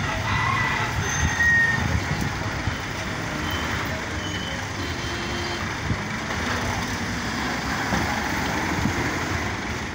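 Road traffic: motor vehicles, a truck among them, running and passing in a steady rumble.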